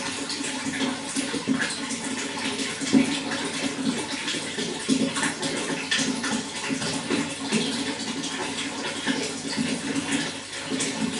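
Running water, flowing steadily with many small splashes and gurgles.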